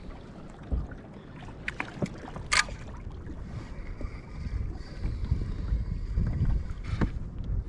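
Water slapping against a kayak hull with wind buffeting the microphone. A few sharp clicks or knocks come through, the loudest about two and a half seconds in.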